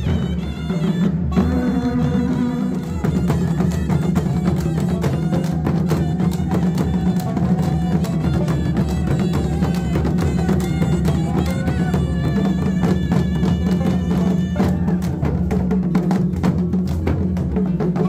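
Himachali folk band playing in a street procession: dhol barrel drums keep a steady beat under wind instruments carrying a sustained, reedy melody.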